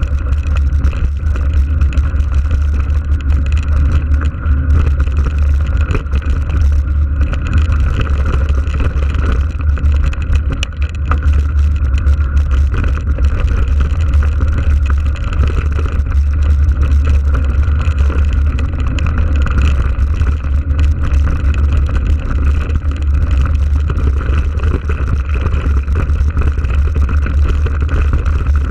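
Wind buffeting an action camera's microphone while mountain biking on a dirt track: a loud, steady low rumble, with the crunch and rattle of the bike rolling over gravel underneath.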